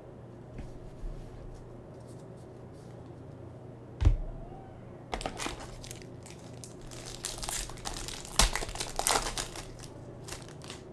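Foil trading-card pack wrapper crinkling and rustling as a pack is pulled from the box and handled, with two knocks, about four and eight seconds in.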